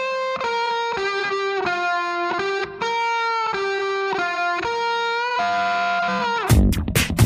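Instrumental background music. A melody of single held notes plays alone, and about six and a half seconds in, drums and bass come in with a beat.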